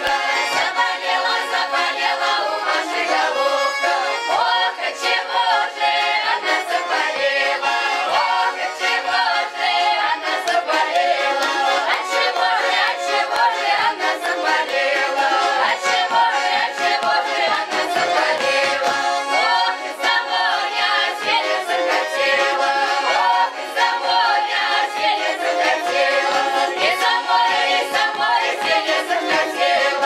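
Russian folk ensemble singing a folk song in chorus, mixed women's and men's voices, with accordion and strummed balalaika accompaniment.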